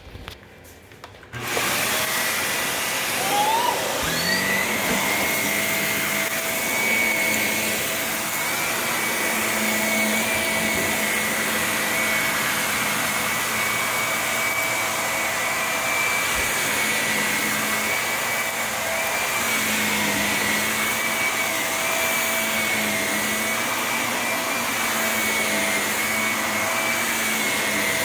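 Bagless upright vacuum cleaner switched on about a second in, its motor whine rising over the next few seconds and then running steadily as it is pushed over carpet.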